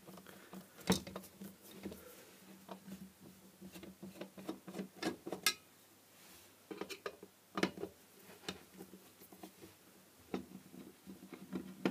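A screwdriver and hands working on a metal LED floodlight housing while it is taken apart. Irregular clicks, taps and light scrapes of metal parts and screws, one sharper knock about a second in, over a faint steady hum.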